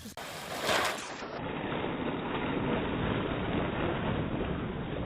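A steady rushing noise, with a brief louder swell just under a second in.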